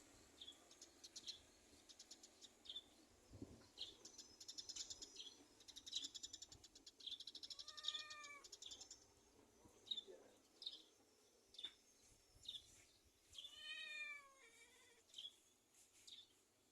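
A domestic cat meows twice, short arched calls about halfway through and again near the end, the second followed by a smaller one. Many short high chirps and a fast twittering are heard around the meows.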